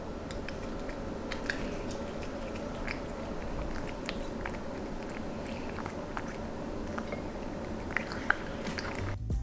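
Irregular soft clicks and crunches over a steady low hum, like chewing or small objects being handled.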